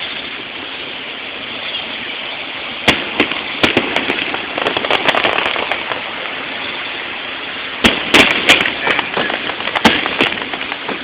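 Aerial fireworks display heard from a distance over steady crowd and street noise: a couple of sharp bangs a few seconds in, then a rapid burst of crackling reports near the end, echoing off the city buildings.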